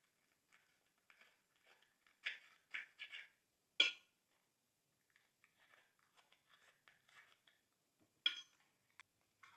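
Glossy slime being squished and stretched by hand, giving short sticky crackles and pops in scattered bursts: a cluster about two to four seconds in and another near the end.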